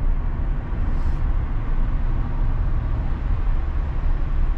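Steady low engine and road rumble inside the cabin of a 2012 Hyundai Azera 3.0 V6 being driven. The engine, freshly tuned up, no longer misfires but still runs rough, which the mechanic notes.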